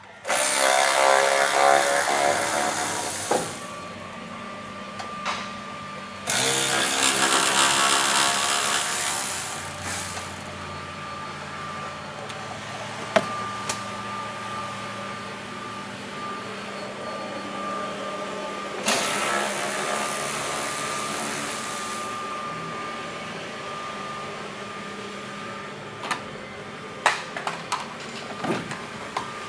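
Power ratchet whirring in three runs of about three seconds each, undoing bolts. Light clinks of tools and parts come near the end.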